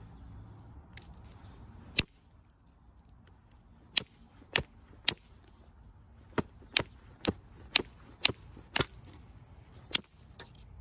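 A small hammerstone striking the edge of a flint biface: about a dozen sharp, separate clicking taps, a few at first and then roughly two a second. Each tap knocks a flake off the edge while the stone is bifaced into a knife blade.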